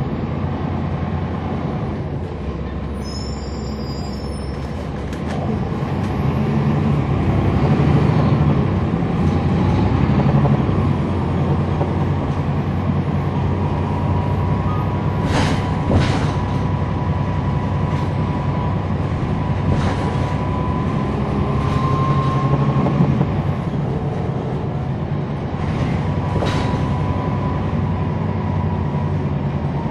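Cummins ISL9 diesel engine of a 2011 NABI 416.15 (40-SFW) transit bus running under way, heard from the rear of the cabin, with a steady low engine note that grows louder a few seconds in. From about halfway a thin steady whine joins it, and a few sharp rattles sound.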